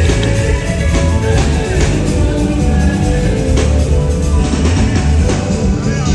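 Live rock band playing at a sound check: electric guitar over bass and drums, loud and continuous.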